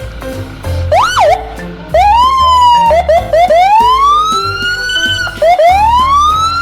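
Electronic police-style siren whooping: a quick up-and-down yelp about a second in, then several long rising wails, some led in by short chirps.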